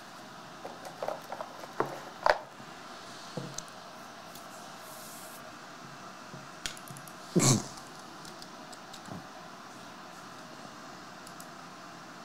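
Quiet room tone with a few faint short clicks in the first couple of seconds and one brief, louder noise about seven and a half seconds in.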